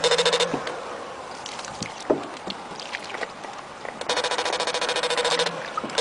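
Electric fish shocker giving a loud, rapid pulsing electrical buzz, switched on in bursts. It cuts out about half a second in and comes back about four seconds in for a second and a half. In the gap there is only faint noise and a few light knocks.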